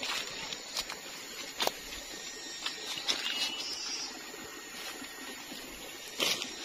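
Footsteps crunching through dry leaf litter and twigs, with a few sharp snaps, over a steady background hiss. A short high chirp sounds about three seconds in.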